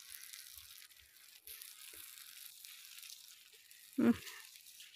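Sucuk sausage slices faintly sizzling on a hot marble slab over a wood fire, a steady quiet hiss. A short vocal sound about four seconds in.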